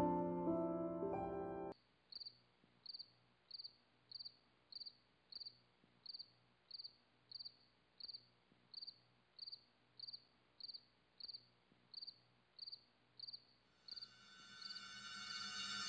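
Soft piano music that cuts off about two seconds in, followed by a single cricket chirping in an even rhythm, a little under two short high chirps a second. Music fades back in near the end.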